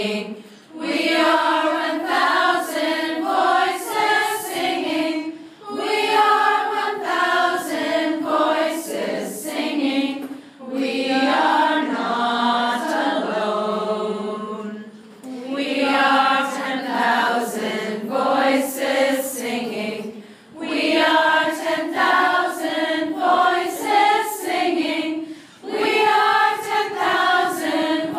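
A group of voices singing together in chorus. The phrases run about five seconds each, with short breaks between them.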